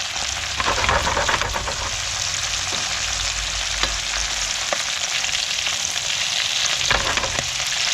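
Whole whiting and vegetables frying in oil in a pan: a steady sizzle with scattered small crackles and ticks.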